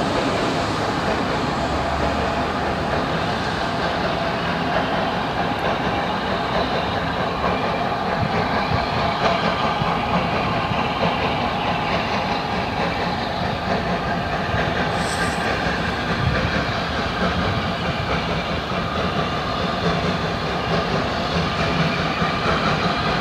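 Hunslet Austerity 0-6-0 saddle tank steam locomotive working steadily as it approaches, with steam hissing from its open cylinder drain cocks. The sound stays loud and even.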